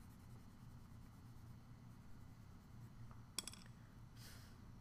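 Near silence with faint scratching of a graphite drawing pencil on paper, then a single sharp click about three and a half seconds in as the pencil is set down on the table.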